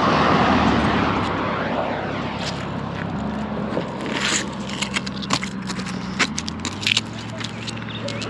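Magnet-fishing magnet hauled up over a galvanised steel bridge railing, scraping and clacking as it and its clinging debris come over the rail. A loud rushing noise fills the first couple of seconds, and a low steady vehicle hum runs underneath from about three seconds in.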